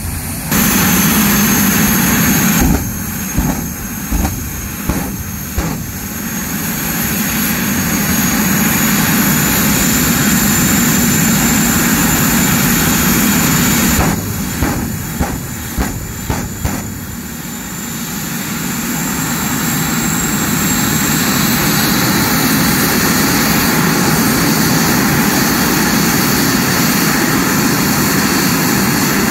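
General Electric J-85-17 turbojet in a 1940 Ford pickup, running loudly with a steady rush and a high whine that rises slowly. Twice, about three seconds in and again about fourteen seconds in, the engine drops back and a quick series of sharp pops sounds before it spools back up.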